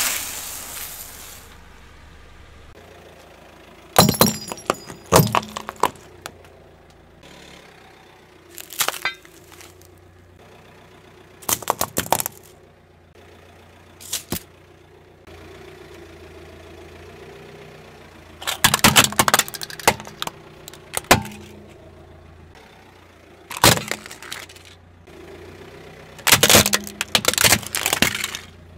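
A car tyre rolling over brittle things and crushing them: crisp wafer discs, then a plastic toy abacus, then a black plastic toy. It comes as a string of separate bursts of cracking, crunching and snapping, with a low engine hum underneath.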